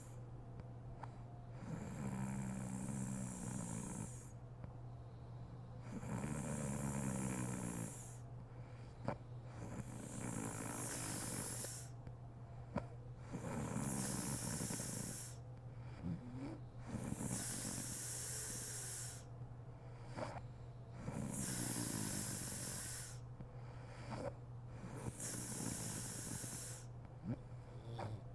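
A sleeping woman snoring, one loud snore about every four seconds, with small clicks in the gaps between breaths and a steady low hum underneath.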